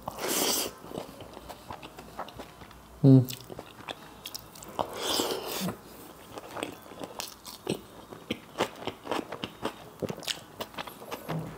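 Close-miked chewing of a mouthful of chicken biryani eaten by hand, full of small wet clicks and smacks, with a short hum about three seconds in.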